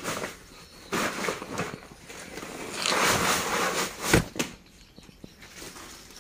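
A bag crinkling and rustling as it is handled and shaken, in several bursts that are loudest around the middle, with a single sharp thump about four seconds in.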